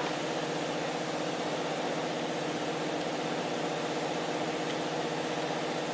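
Steady machine hum from a running motor, even and unchanging, with one faint click about three-quarters of the way through.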